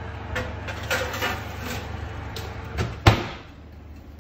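A few scattered clicks and knocks, with one much louder knock about three seconds in, over a steady low hum.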